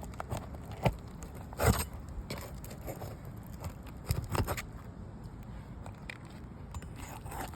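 Roof snake scraping and knocking under asphalt shingles while prying at a roofing nail. A few sharp knocks, the loudest about two seconds in and a cluster about four seconds in.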